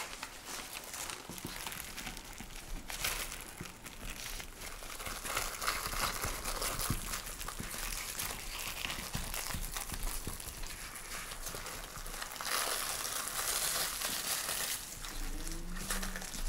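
Plastic wrap crinkling and rustling as a sheet of tart dough covered in it is pressed into a fluted tart pan by gloved fingers, with small crackles throughout and a louder stretch of crinkling about three-quarters of the way in.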